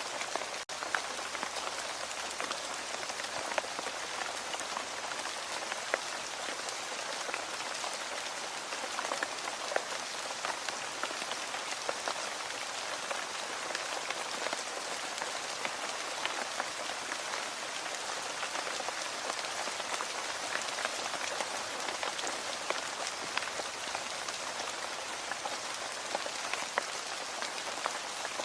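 Steady rain falling on a hard surface: a dense even hiss with individual drops ticking sharply here and there. The sound cuts out for an instant just under a second in.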